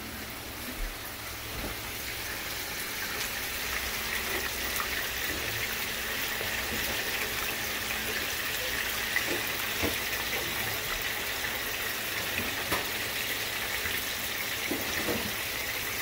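Hushpuppy-battered chicken wings deep-frying in hot oil in an electric countertop deep fryer: a steady sizzling hiss that grows louder over the first few seconds, with a few sharp pops.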